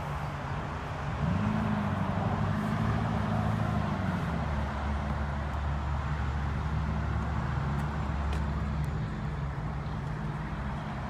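A car engine running close by. It revs up about a second in, then settles, its pitch drifting and wavering, with a deep rumble in the middle stretch.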